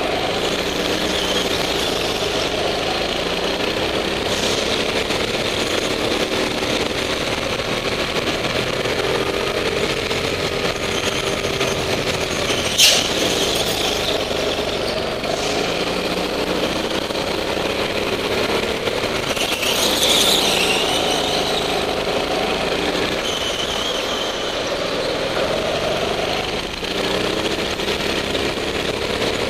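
Go-kart engine running under the driver, revving up and falling back again and again through the bends, with tyre squeal on several corners. A single sharp knock stands out about 13 seconds in.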